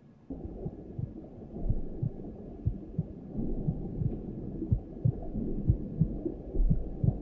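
Film sound-design effect: a low, muffled rumble that starts abruptly a moment in, with repeated dull thuds at uneven spacing, backing a stylised transition shot.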